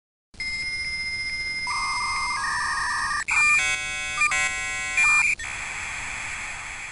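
Dial-up modem handshake: a steady answer tone with regular ticks, then warbling two-tone signalling, a loud cluster of many chiming tones, and a steady hiss of data noise from about five seconds in that begins to fade near the end.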